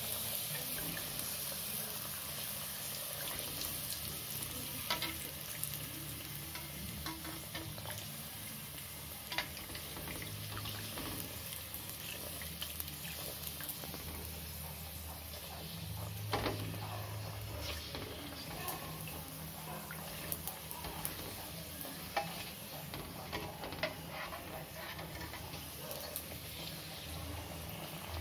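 A stuffed puri deep-frying in hot oil in a kadai, sizzling steadily with scattered pops and crackles. A slotted spoon presses it and ladles oil over it.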